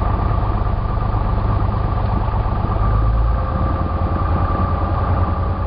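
Cessna 172's piston engine and propeller running steadily, a continuous drone; its low rumble shifts slightly about three and a half seconds in.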